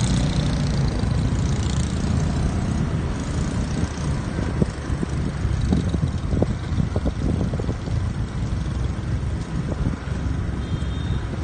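Motorbikes riding along, their small engines running under a steady low rumble of wind on the microphone, with scattered short knocks through the second half.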